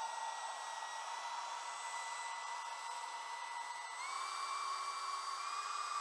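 The 64 mm six-blade electric ducted fan of an RC jet boat, driven by a 4500KV brushless motor, whines steadily with a rushing air sound. Its pitch steps up about four seconds in and again near the end as the fan speeds up.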